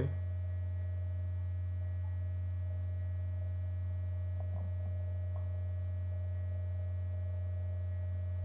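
Steady low electrical hum, like mains hum in the recording, with a thin higher tone over it. A few faint clicks come about four to five seconds in.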